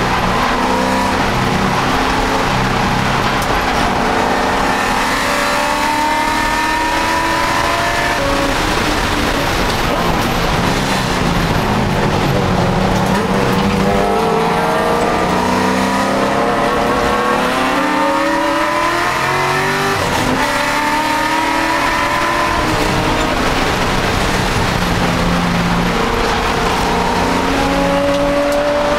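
Race car engine heard from inside the cockpit at full race pace. It revs up repeatedly, its pitch climbing through each gear and dropping back at the shifts and braking.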